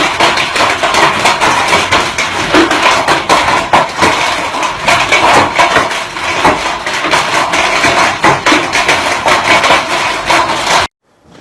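Hailstones pelting hard surfaces in a dense, rapid clatter of countless impacts, stopping abruptly near the end.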